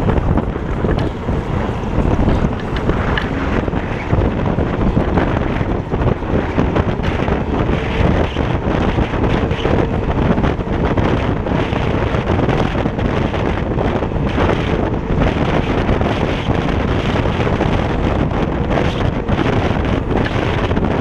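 Steady wind buffeting the microphone and road rumble while riding a Kaabo Wolf King GT electric scooter along a street.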